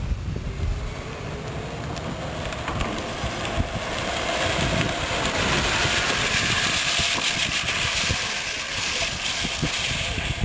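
Radio-controlled Barbie Jeep ride-on with twin brushless 5700 motors driving, a faint rising motor whine early on, then a broad hiss of tyres and drivetrain that grows louder about four seconds in.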